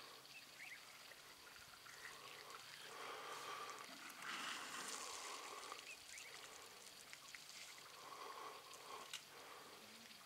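Faint trickling and splashing of water as African elephants drink at a waterhole, drawing water up in their trunks and pouring it into their mouths, a little louder about four to five seconds in.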